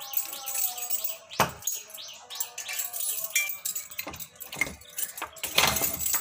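Keys and metal padlocks clinking and rattling, with the clack of sliding metal door bolts, as padlocks on wooden double doors are unlocked. There are several sharp metallic knocks, loudest near the end.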